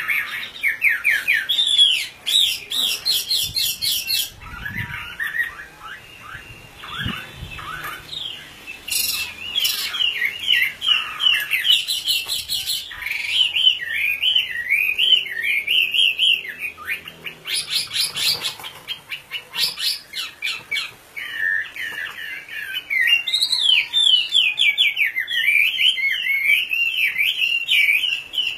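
Chinese hwamei (Garrulax canorus) singing continuously: loud, varied phrases of fast repeated whistled notes, with short pauses between runs.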